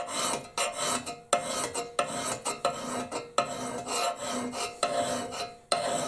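Steel hand file rasping across the bit of a Pulaski fire tool clamped in a vise, in quick repeated strokes, about two a second, sharpening the edge.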